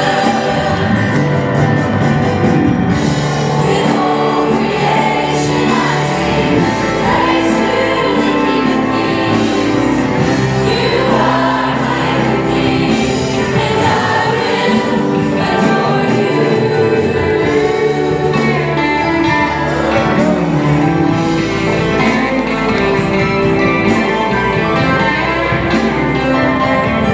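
Youth choir singing a song together into handheld microphones, over keyboard accompaniment.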